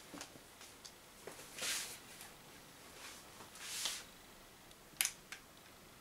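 Faint handling sounds as a pistol is picked up and aimed: a couple of soft rustles, then two sharp clicks about five seconds in.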